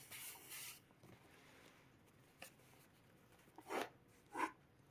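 Near silence: quiet room tone with a faint rustle at the start, a soft click in the middle and two short faint sounds near the end.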